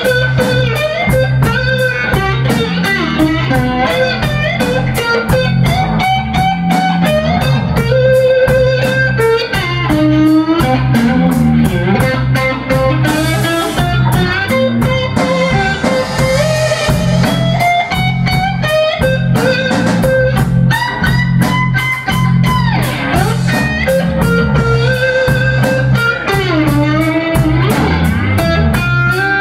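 A blues band playing electric guitars through amplifiers, with a lead line of bent and sliding notes over a bass line and a steady beat.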